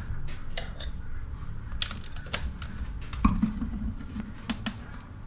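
Scattered plastic clicks and taps with a single louder knock about three seconds in, from handling a small solar panel and plugging in its USB cord.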